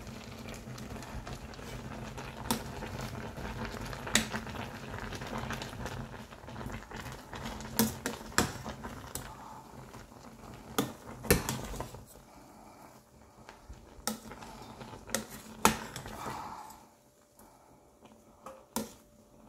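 Cooking-apple pieces bubbling in a stainless steel saucepan, the bubbling fading about twelve seconds in. A metal spoon stirs them and clinks against the pan several times.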